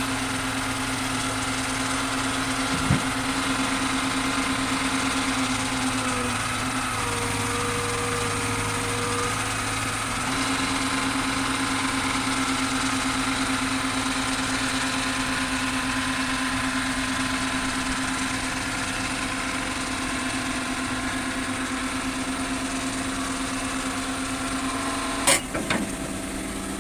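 Diesel engine of heavy equipment running steadily at a constant speed. Its tone shifts briefly between about six and ten seconds in, and a sharp metallic knock sounds near the end.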